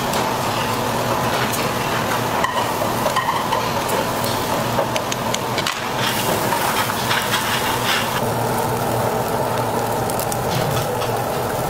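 Beef sizzling on a charcoal grill: a steady hiss with many small crackles and clicks scattered through it.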